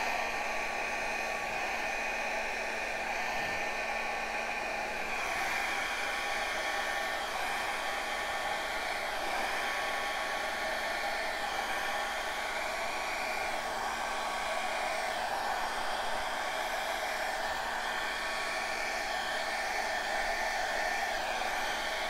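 Small handheld blow dryer running steadily, a constant rush of air with a steady motor whine, blowing wet acrylic pouring paint across a canvas.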